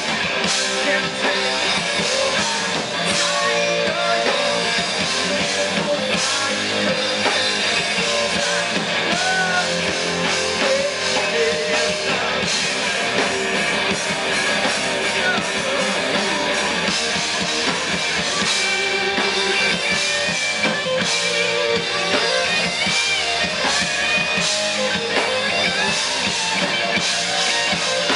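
Live rock band playing: electric guitars over a drum kit, steady and unbroken throughout.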